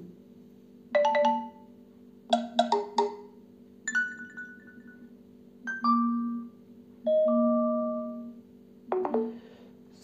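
Built-in notification tones of a OnePlus Nord phone playing through its speaker, one after another as each is tapped to preview it. There are about six short chimes with a pause of a second or so between them, each a different melody or pitch and each ringing out briefly.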